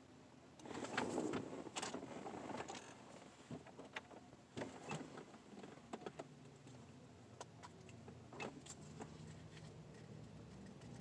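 Faint outdoor street ambience: a swell of noise about a second in, scattered light knocks and clicks, and a low steady hum in the second half.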